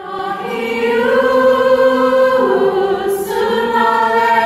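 A choir singing held chords. The chord changes about halfway through, and a short sung 's' hiss comes a little after.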